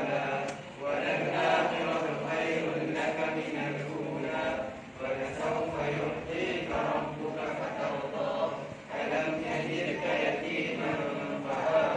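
A group of children reciting the Quran aloud together in unison, many voices chanting steadily with only brief pauses for breath.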